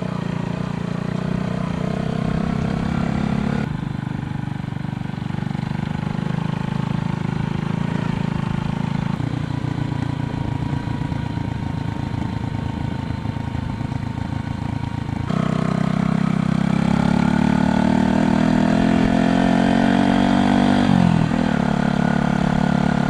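125cc motorcycle engine running while under way. Its pitch climbs steadily for several seconds, then drops sharply near the end.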